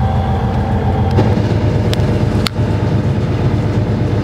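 Steady low hum of a commercial fishing boat's engine running, with two short sharp clicks about two and two and a half seconds in.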